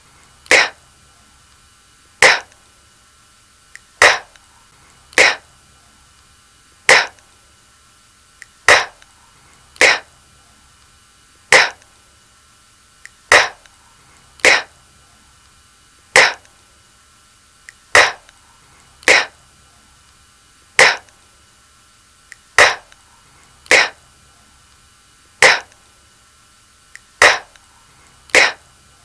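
A voice repeating the unvoiced phonics sound for c/k, a short breathy "k" with no vowel after it. It comes about nineteen times, roughly one every second and a half, in an even drill rhythm.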